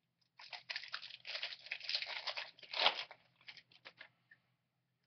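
Foil trading-card pack wrapper being torn open and crinkled: a run of crackling that starts about half a second in, peaks near three seconds and fades out by about four seconds.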